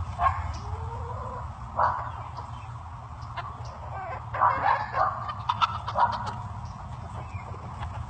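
A run of short, sharp animal calls, about eight of them, bunched most closely about four to six seconds in, over a steady low rumble.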